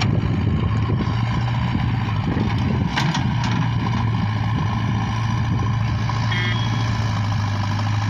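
JCB 3DX backhoe loader's diesel engine running steadily while the front loader bucket pushes earth and debris, with two sharp knocks about three seconds in.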